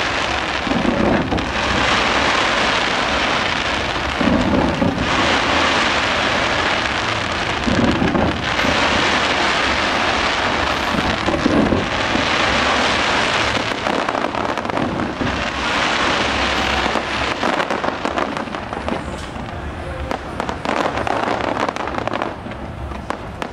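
Fireworks display: a dense, continuous hissing crackle like heavy rain, with a deep boom about every three and a half seconds in the first half. Toward the end the hiss thins into many sharp crackles from crackling stars.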